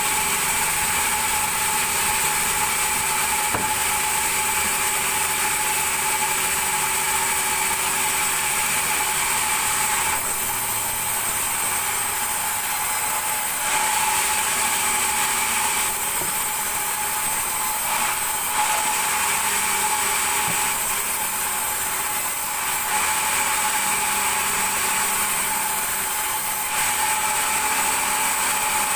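Large vertical band saw ripping a thick timber slab lengthwise, running with a steady whine over the rasp of the blade in the wood. The sound of the cut changes every few seconds as the slab feeds through.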